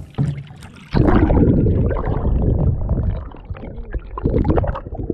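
Muffled gurgling and sloshing of water washing over an action camera's microphone as it dips below the surface beside a kayak. The rumble starts suddenly about a second in, eases after a couple of seconds, and surges again briefly near the end.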